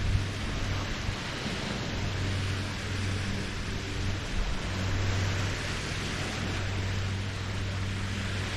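Small Lake Huron waves lapping on the shore as a steady wash of noise, with a steady low motor hum running underneath.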